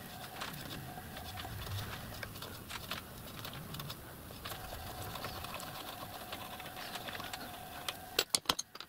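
A small steel crosshead in a vice having its 2BA piston-rod hole worked by a tool in a drill chuck: light metallic clicks, with a faint steady hum from about halfway. Several sharp metal clinks come near the end.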